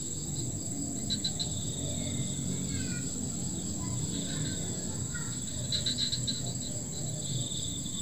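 Insects trilling steadily at a high pitch, with spells of faster, louder chirping about a second in and again near six seconds, over a low outdoor background hum.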